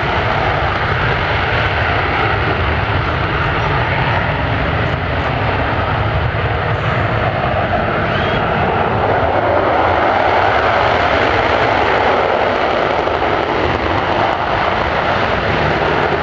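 F-15 fighter jets taking off on afterburner: loud, continuous jet noise that swells somewhat around the middle, with the next jet's afterburner takeoff run under way near the end.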